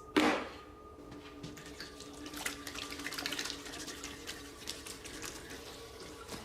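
Water running and dripping, like a tap into a sink, with many small irregular drips and clicks. A brief louder sound comes right at the start.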